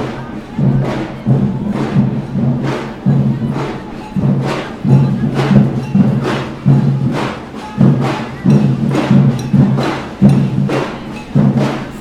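A drum being beaten hard by a marcher, a steady beat of a little under two strikes a second, each strike ringing on.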